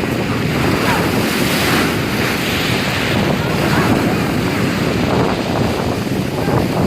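Stormy sea surf breaking and churning, loud and continuous, with heavy wind buffeting the microphone; a wave surges up about two to three seconds in.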